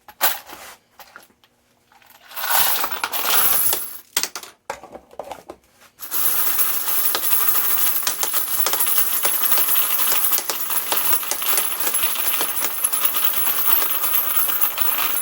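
.223 brass cases being shaken in a Lee case collator, rattling and clattering as they tumble and drop through the feed holes. A few short rattles at first, then from about six seconds in a dense, continuous clatter like rain.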